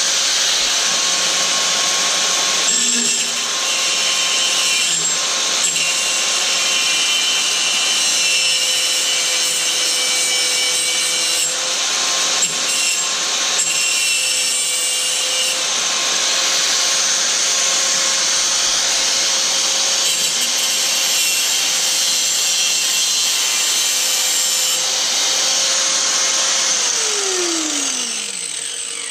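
Electric power tool cutting, its motor running at a steady speed under a rasping cut. About two seconds before the end it is switched off and the motor winds down, its pitch falling.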